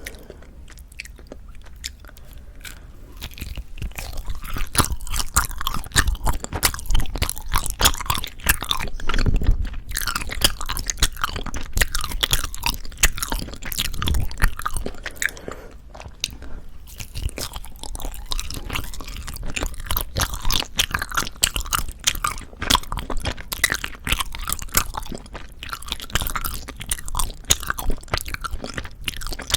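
Soft Korean rice cake (tteok) being chewed close to the microphone: a dense run of small mouth clicks and chewing sounds, quieter for the first few seconds, then steady and louder.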